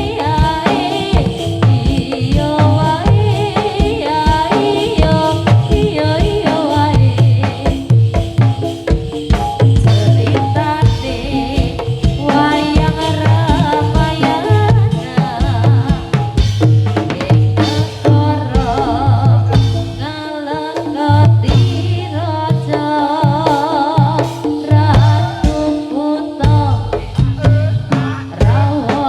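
Live Javanese traditional ensemble music: busy, driving drumming with deep thumps under several wavering melodic lines.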